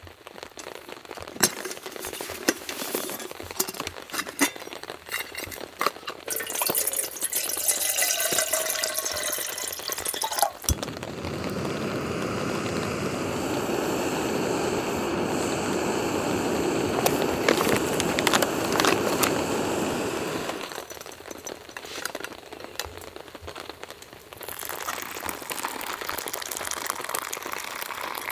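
Camp cookware rattling, then water poured into a vessel with a pitch that rises as it fills. A click is followed by a canister gas stove burning under a kettle with a steady hiss for about ten seconds. Near the end, hot water is poured from the kettle into a cup.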